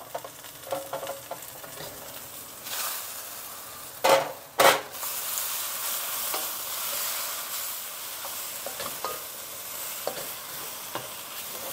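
Chicken and sugar snap peas sizzling in a hot wok while a wooden spatula stirs and scrapes them. Two loud knocks come about four seconds in, after which the sizzle is louder.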